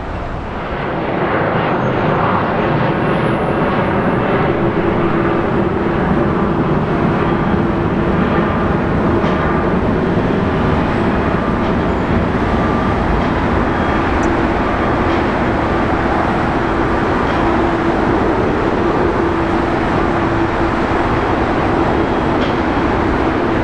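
Jet airliner engines running: a loud, steady rushing noise with a constant low hum.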